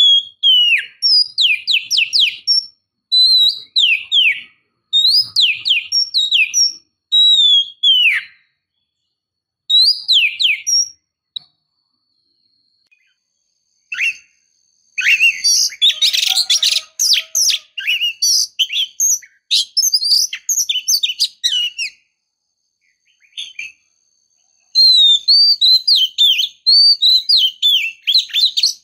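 Oriental magpie-robin (kacer) singing: loud, quick downward-sweeping whistled phrases, a dense run of rapid notes in the middle, and short silent pauses between bouts. The uploader presents it as a female in breeding condition calling to males.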